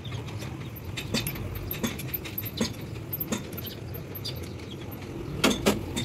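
Metal clicks and clinks of a T-handle socket wrench turning the main bearing cap bolts on a Hino truck engine block, about one click every 0.7 s. Near the end come a couple of louder metal knocks.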